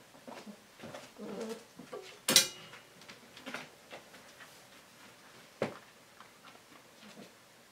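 Husky dogs at a water bowl: a short, low, cooing whine from a dog about a second in, then a sharp, loud knock a little after two seconds in and a smaller knock near the end, among light clicks and taps.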